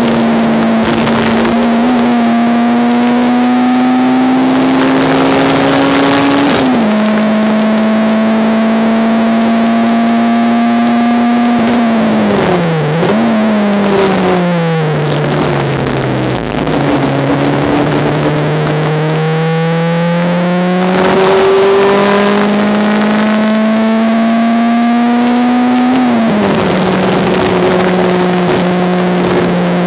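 Honda Civic race car engine heard from inside the cabin, revving up through the gears. Revs climb and drop at upshifts about 7 seconds in and again near the end; in the middle they fall away with a quick blip, then climb steadily again out of the slow section.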